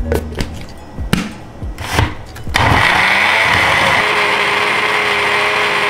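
Countertop blender switched on about two and a half seconds in, running steadily at full speed as it purées cooked tomato masala into gravy.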